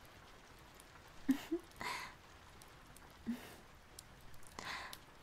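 A young woman's breathy exhales close to the microphone, about two seconds in and again near the end, with a few short soft vocal sounds between them: small effort noises as she squeezes in to cuddle.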